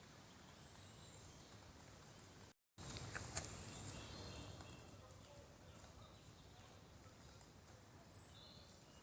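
Quiet woodland ambience with faint, distant birdsong in short high phrases. The sound drops out completely for a moment about two and a half seconds in, then returns a little louder with a sharp click.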